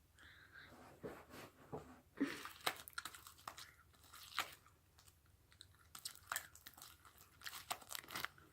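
Hands kneading sticky slime: faint, irregular squelches and crackling pops as the slime is stretched and folded.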